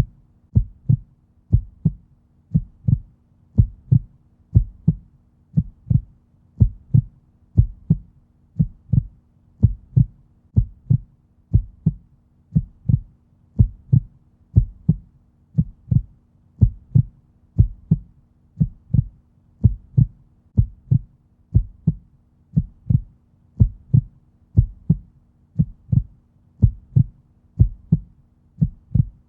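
Heartbeat sound: a steady resting-rate lub-dub, deep paired thumps repeating about once a second.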